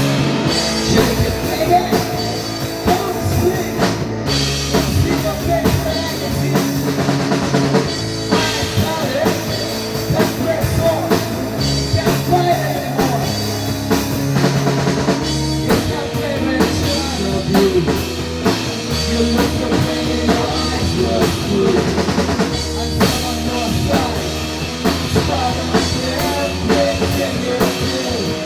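Rock band playing an instrumental passage, with a drum kit keeping the beat under a bass line and a wavering guitar melody.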